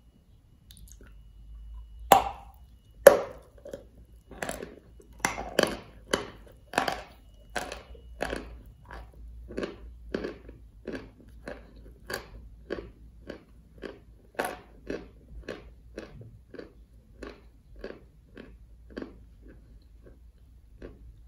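A mouth biting into a chalk block coated in clay and chewing it. Two sharp crunching bites come a couple of seconds in, then steady crunchy chewing at about one and a half chews a second, growing fainter toward the end.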